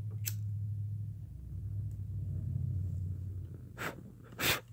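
Disposable lighter struck twice near the end, two short sharp strikes of the flint wheel as it is lit to melt cut paracord ends, the second the louder. Under it a low steady hum fades out after about three and a half seconds, and there is a single sharp click just after the start.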